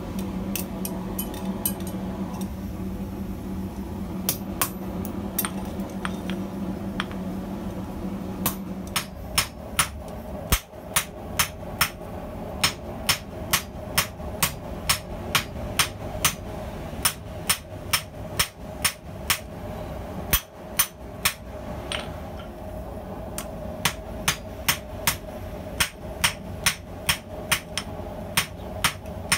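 Hand hammer forging red-hot bearing steel on a small steel stump anvil, drawing out a straight razor blade: blows land evenly about twice a second, each with a short ring from the anvil. For the first several seconds there is only a steady low hum with a few light taps before the hammering starts.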